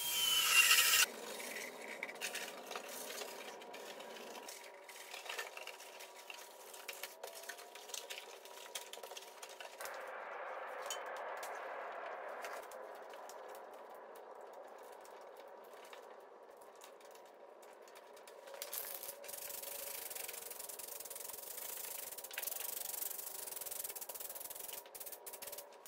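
A cordless drill runs briefly at the start, boring holes in the sheet-steel firewall. Then there is low rustling and handling, and over the last several seconds an aerosol can sprays rubberized undercoating with a steady hiss.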